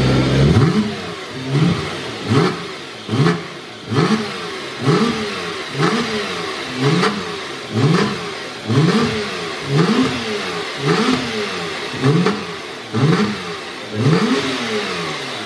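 Porsche 911 Turbo S flat-six engine blipped over and over, about once a second. Each blip revs up sharply and falls back, after a steady held rev that drops away about half a second in.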